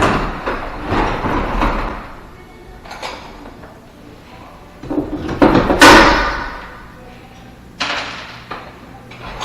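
Irregular knocks, scrapes and clatter of an old wooden pocket door and its jamb parts being pulled loose and handled, loudest a little past halfway.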